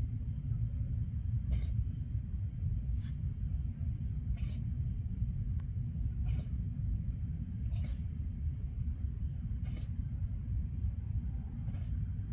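A possum sneezing repeatedly: seven short, sharp sneezes, one about every one and a half to two seconds, over a steady low rumble.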